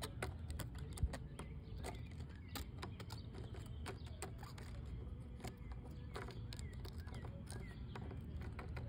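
Small plastic toy figure tapping and clicking on a wooden railing, many light irregular clicks, over a steady low rumble, with a few faint short chirps.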